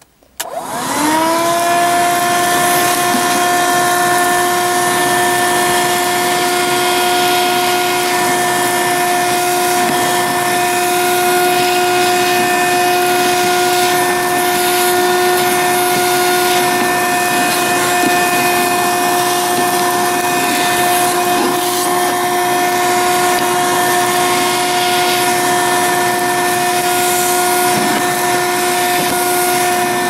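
Black & Decker PD1200AV car vacuum cleaner switched on about half a second in. Its motor spins up with a quickly rising whine and then runs steadily at full suction while the crevice nozzle works in the narrow gap beside the seat.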